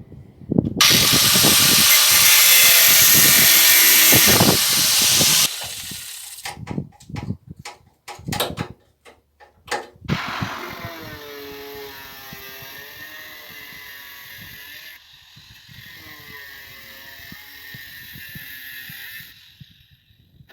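Angle grinder with a knotted wire wheel scouring rust off a van's steel sliding door. It is loud for about four seconds, then comes a run of knocks. From about ten seconds in the grinder runs more lightly, its pitch wavering, and it stops shortly before the end.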